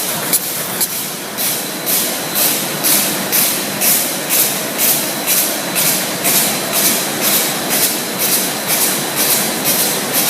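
Roll slitting and rewinding machine running, with a rhythmic swishing hiss that pulses about two to three times a second over a thin steady whine.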